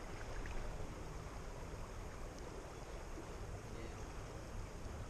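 Steady rush of a flowing stream, with a low wind rumble on the microphone.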